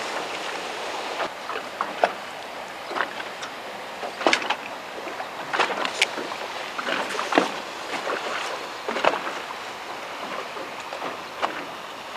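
Small waves slapping and splashing against the hull of a small boat, irregular sharp slaps over a steady wash of water and wind.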